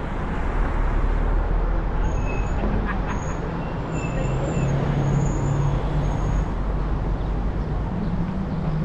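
Car driving in traffic: a steady rumble of engine and road noise, with a few faint short high squeaks in the middle.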